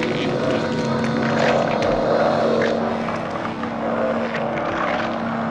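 A werewolf snarling and growling in a film soundtrack: a continuous rough rumble that swells and eases, over a steady low drone.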